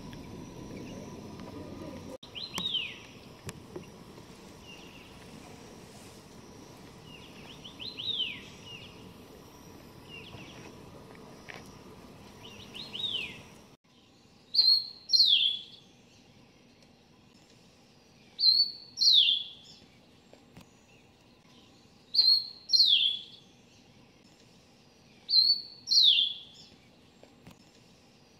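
Bird calls in two parts. First, a brown bullfinch gives single falling whistled notes about every five seconds over steady background hiss. After an abrupt cut about halfway through, a Steere's liocichla calls in pairs, a short high note then a falling whistle, about every three and a half seconds.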